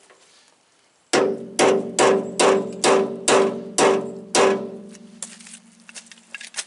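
Eight sharp metal-on-metal strikes, a little under half a second apart, each ringing with a clear tone that hangs on for a couple of seconds after the last blow.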